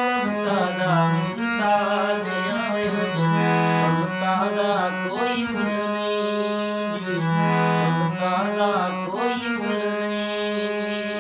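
Harmonium, played by hand with bellows pumping, holding sustained low notes that change every second or two under a sung melody that glides and bends: a Punjabi song sung with harmonium accompaniment.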